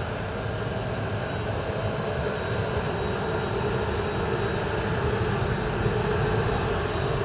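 Train at a station platform, running with a steady drone and a faint high whine, growing slightly louder past the middle.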